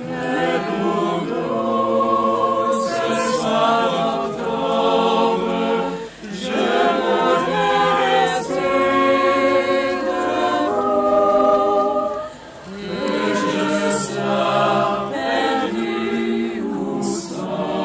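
A choir singing a cappella, holding full chords in long phrases, with brief breaks between phrases about six and twelve seconds in.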